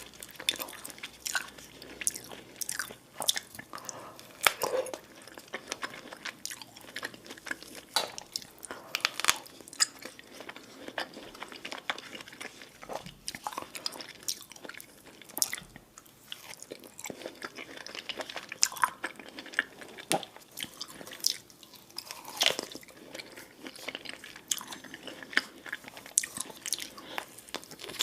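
A person chewing and biting food close to the microphone: irregular wet mouth smacks and crunches, several a second, some much sharper than others.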